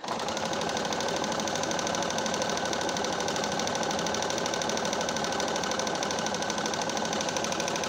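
Pfaff Quilt Expression 4.2 computerized sewing machine stitching a decorative pattern at a steady, fast rate, starting suddenly. This is a test run after a thread-tension repair.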